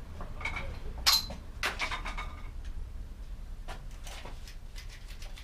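Metal clinks and knocks from tools and parts being handled at a bicycle's rear wheel. The loudest comes about a second in, with a brief metallic ring, and softer taps follow near the end.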